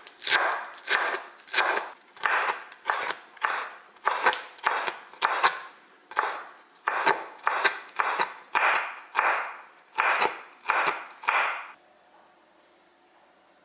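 A kitchen knife slicing green onions and then a red chili on a wooden cutting board, in a steady rhythm of about three strokes every two seconds. The strokes stop about twelve seconds in.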